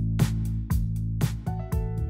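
Background music with a steady beat.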